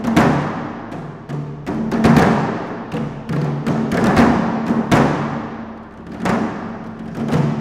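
Sampled water cooler jug hits from Tonehammer's Anti-Drum Vol 1 "Watercooler" patch, played as a drum pattern. It is a quick, irregular run of low, pitched thumps, each ringing out after the strike, with short rapid rolls near the end.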